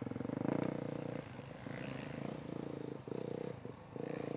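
Motocross bike engine running under throttle, easing off briefly a few times.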